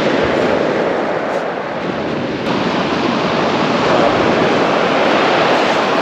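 Surf breaking and washing up a shingle beach, a steady rush of waves that swells slightly about four seconds in.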